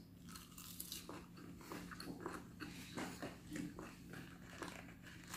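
Faint, irregular small clicks and crackles of fingers and a fork handling crispy fried chicken on a plastic plate.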